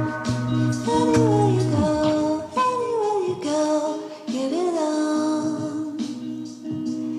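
Background music: a pop song with a female voice singing over sustained instrumental notes.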